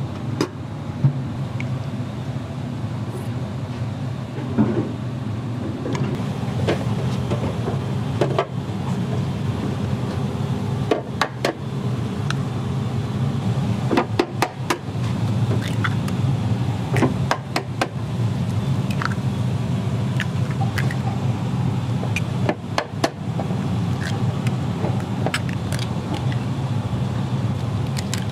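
Eggs being cracked one after another into a plastic food container, with sharp taps and cracks coming in clusters every few seconds. Under them runs a steady low kitchen hum.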